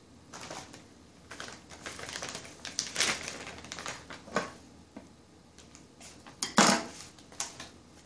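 Clear plastic parts bags and packaging crinkling and crackling as they are handled, with scattered clicks and taps on the table. The loudest crackle comes about six and a half seconds in.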